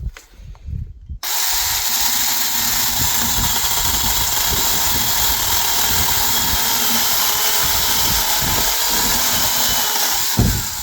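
Cordless Supstable mini battery chainsaw starting abruptly about a second in and running steadily under load as it cuts through a thick tree branch. Near the end there is a thump, and the motor winds down.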